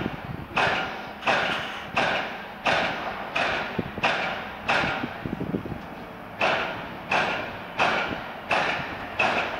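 Crunching footsteps of someone walking at a steady pace, about one step every 0.7 seconds, with a short pause midway.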